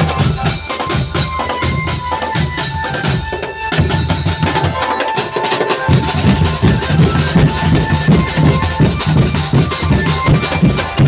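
Drum band music: loud, rhythmic drumming with deep bass drum beats and other percussion. The bass drops out briefly about five seconds in, then the beat resumes.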